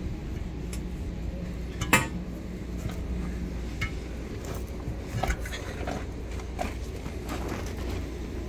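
Metal clinks and clanks of tire tools and split-rim parts being handled while a tire is mounted on a split rim. There is one sharp, ringing clank about two seconds in and lighter clicks later, over a low steady hum.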